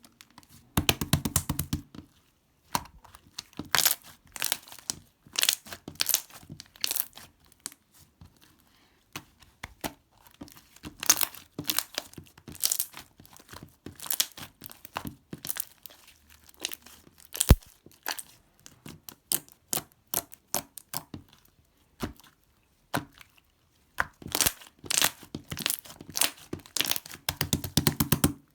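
Crinkly material such as packaging being handled, crackling and tearing in irregular bursts with short pauses, and one sharp click about two-thirds of the way through.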